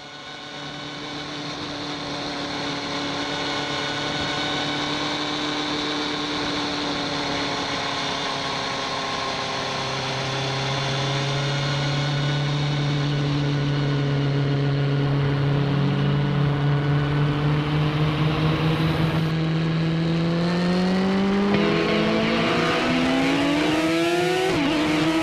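Motorcycle engine running at a steady pitch, then rising in pitch as it accelerates over the last few seconds.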